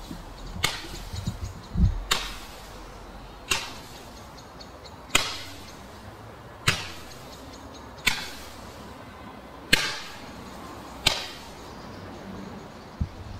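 Consumer firework cake firing single shots at a steady pace, about one every second and a half, eight in all. Each shot is a sharp report that fades away quickly.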